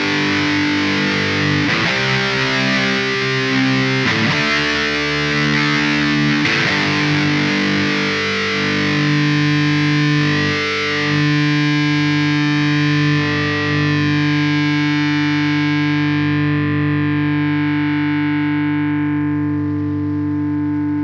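Charvel Desolation Skatecaster electric guitar played through distortion: a few strummed chord changes, then one chord left to ring out, its bright top end slowly dying away.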